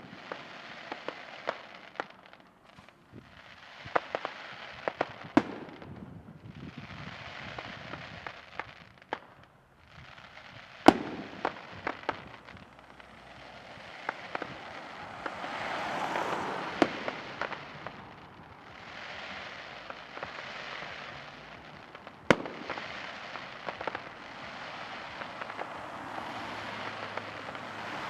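Aerial fireworks going off: sharp bangs of shells bursting, the loudest about eleven seconds in, between stretches of dense crackling that swell and die away.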